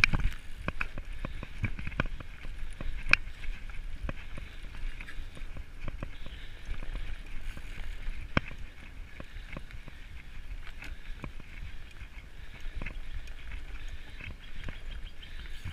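Mountain bike ride noise on a rough dirt trail: wind rumbling on the microphone and tyres running over dirt, with frequent clicks and rattles of the bike over bumps. The sharpest knocks come about three and eight seconds in.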